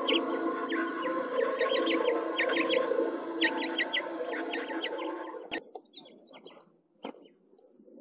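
House finches chirping in quick clusters of short, high chirps, several a second, over a steady low hum. The sound cuts off sharply about five and a half seconds in, leaving a few faint chirps and a single knock near the end.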